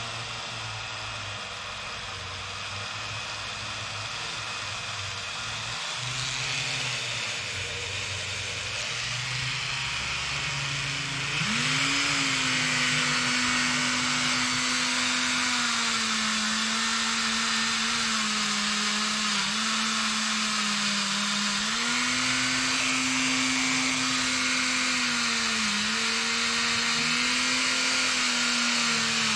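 Dremel rotary tool with a small soft-bristle wire brush running, brushing light rust off a steel knife blade and hand guard. About eleven seconds in it gets louder with a steady motor whine, and the whine sags in pitch for a moment several times as the brush is pressed against the steel.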